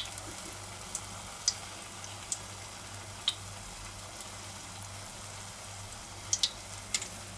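Batter-coated hot dogs (corn dogs) deep-frying in a pot of oil at about 170 °C: a steady sizzling hiss with scattered sharp pops and clicks, two of the loudest close together about six and a half seconds in.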